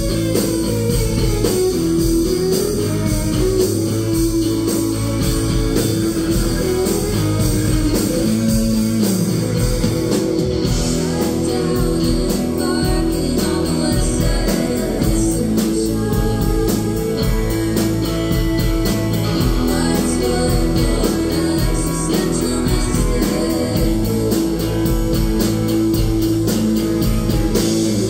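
Live rock band playing: electric guitars, bass guitar and drum kit with a steady beat, with sung vocals.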